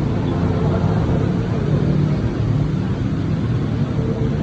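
Steady low rumble of street traffic, with engines humming.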